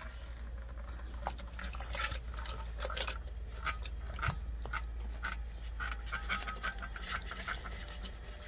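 Cooked beans and their broth being scooped by hand from a clay pot and dropped into a pot of melted butter: irregular wet splats, plops and scrapes, over a steady low hum.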